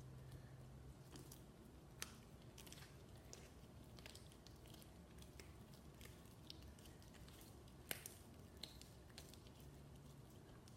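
Faint squishing and clicking of sticky slime being worked by hand, with two sharper clicks, one about two seconds in and one near eight seconds.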